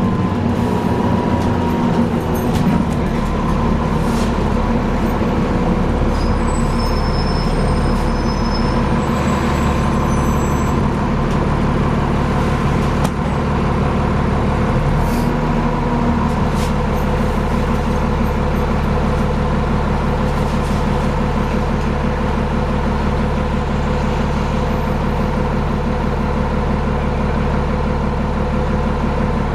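Alexander Dennis Enviro 400 double-decker bus running, its engine and drivetrain noise carrying a steady whirring whine. A few short high-pitched tones sound about a third of the way in, and the low engine note changes a little past halfway.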